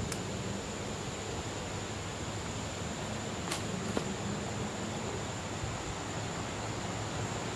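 Woodland ambience in late summer: a steady high-pitched insect drone, typical of crickets, over a low hiss, with a couple of sharp clicks about halfway through.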